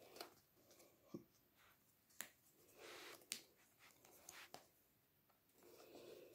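Faint handling of a handmade cardboard scrapbook: paper and card pages and flaps swishing as they slide and turn, with a few sharp taps and clicks as they are laid down.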